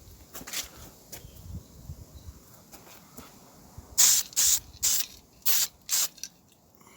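Undercoat paint being sprayed in short hissing bursts: a faint burst about half a second in, then five quick bursts in a row about four seconds in.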